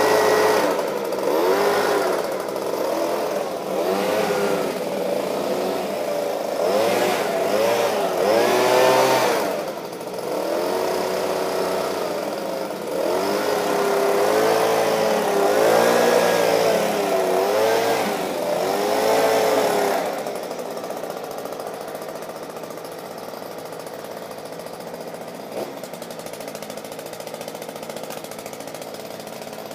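Stihl SH86 leaf blower's 27.2 cc two-stroke engine, carried on a homemade backpack frame. It is revved up and down again and again, about ten rises and falls in pitch, then drops to a steady idle about twenty seconds in.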